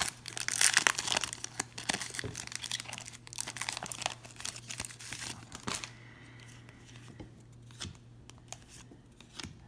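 A trading card pack's wrapper being torn open and crinkled, dense crackling for about six seconds, then a few faint clicks as the cards are handled.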